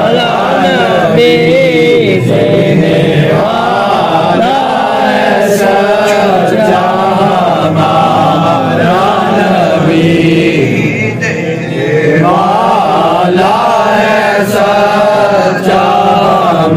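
A man's voice chanting a supplication in a slow, melodic recitation, drawing out long wavering notes with hardly a break.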